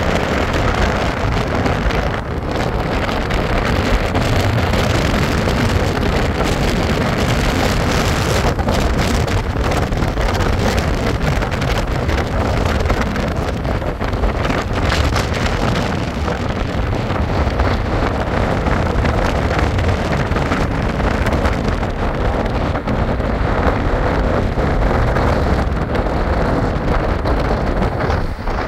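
Steady rush of wind buffeting the microphone, mixed with the road noise of a moving vehicle.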